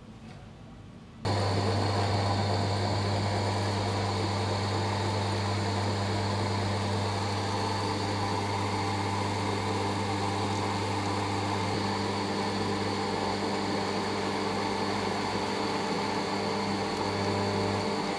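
An electric motor switched on about a second in, running with a steady, even hum.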